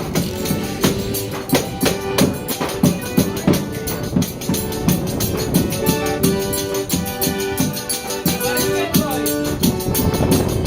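Live forró pé de serra band playing: held melody notes over a steady percussion beat.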